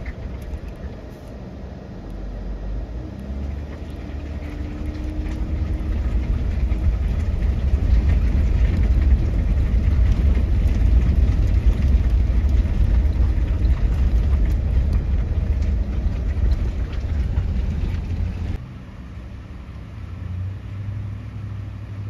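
Van driving over a cobblestone street, heard from inside the cab: a loud, low rumble of the tyres on the cobbles that builds over the first several seconds and drops away sharply near the end.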